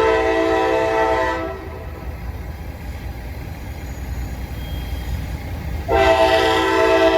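A freight locomotive's multi-chime air horn blowing for the grade crossing: one long chord cuts off about a second and a half in, and after a pause of about four seconds a second long blast begins. The diesel locomotive's low rumble runs underneath throughout.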